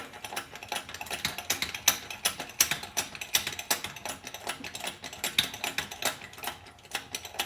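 Hand-cranked press being wound down: a dense string of irregular metallic clicks and rattles from its mechanism, several a second.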